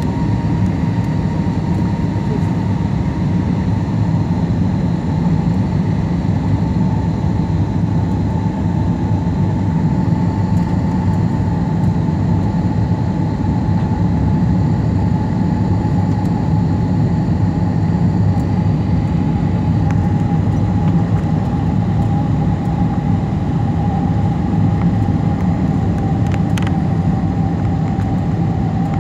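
Jet airliner cabin noise during the climb after take-off: a steady heavy rumble of engines and airflow, with a high tone that slowly sinks in pitch.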